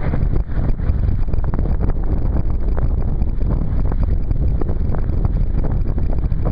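Wind buffeting the microphone over water rushing and splashing along the hull of a Sunfish sailboat heeled under sail in choppy water. The sound is loud and continuous, with frequent short splashes.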